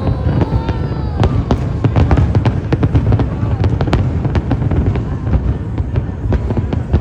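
Fireworks going off: many sharp cracks in quick succession over a continuous low rumble of booms.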